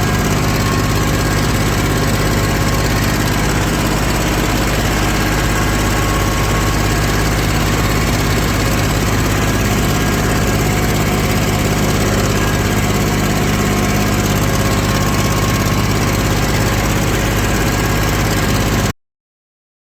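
Old tractor's engine running steadily while driving a rotary tiller. The sound cuts off abruptly near the end.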